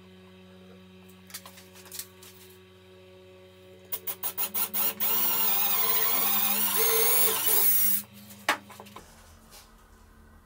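Cordless drill boring a small hole in a small wooden block: a few short trigger blips, then about three seconds of steady running with a wavering whine, cutting off sharply. A single sharp click follows soon after.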